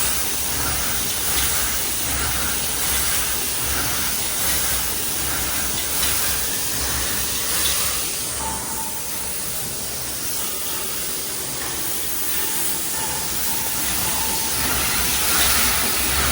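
Automatic glass-bottle silkscreen printing machine running: a steady hiss with a low hum, and a regular pulse of about two beats a second through the first half.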